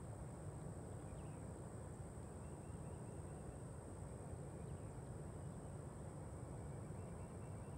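Faint field ambience: a steady, high-pitched insect drone over a low, steady rumble.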